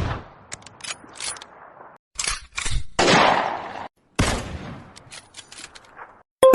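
Gunshot sound-effect notification tones: a loud blast with a fading tail, then more blasts about two, three and four seconds in, with short sharp clicks between them. A bright pitched chime, the next tone, starts right at the end.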